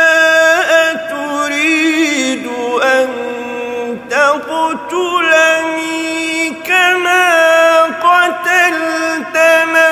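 A man chanting Quran recitation in a melodic tajwid style, holding long ornamented notes that waver and glide in pitch, with a brief breath break about four seconds in.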